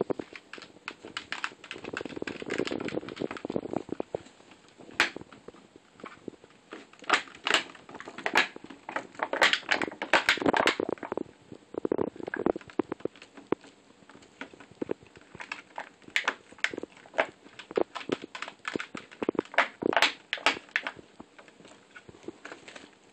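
Kitten pawing and scrabbling at a plastic gallon water jug and trampling tissue paper: irregular taps and clicks on the plastic mixed with crinkling and rustling.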